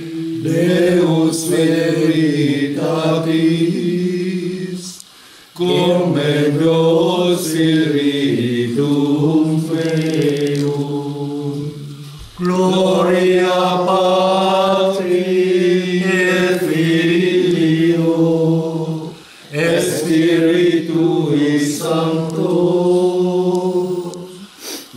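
Men's voices singing a slow prayer chant together, long held notes in phrases of about five to seven seconds, each followed by a short pause for breath.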